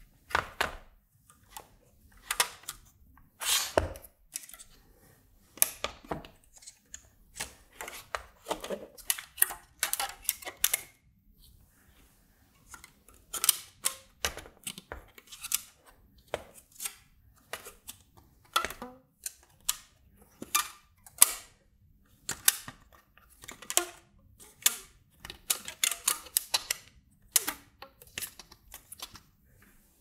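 Irregular clicks and clacks of a kit-built front-panel assembly, a circuit board fixed behind an acrylic panel with rows of toggle switches, being handled and turned over. The sharp clicks are scattered through the whole span, several at a time in bunches, with a few near-quiet gaps.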